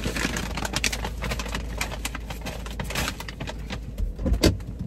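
Rustling, shuffling and small knocks as a person moves across a car's front seats, with a heavier thump a little over four seconds in.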